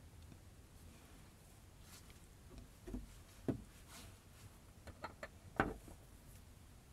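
A few light clicks and knocks of metal hand-drill parts being handled and fitted together, scattered through the second half, the clearest about three and a half seconds in and just before the end.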